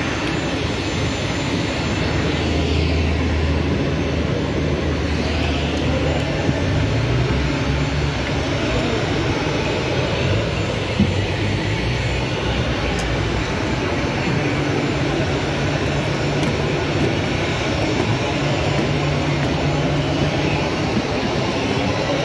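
Steady jet aircraft noise on an airport apron: a low hum under a wide, even hiss.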